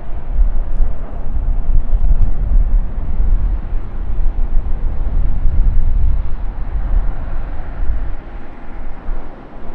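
Low, rumbling jet-engine noise of an arriving Airbus A321-231 with IAE V2500 turbofans, rising and falling in loudness and easing off over the last two seconds or so.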